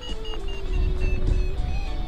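Music with slow held notes stepping in pitch and a high, broken tone above them, over a steady low rumble like wind on the microphone.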